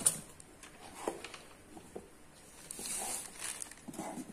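Clear plastic packaging bags crinkling and plastic jar lids and parts being handled and set down. A sharp click comes at the start, light knocks follow, and a spell of rustling comes about three seconds in.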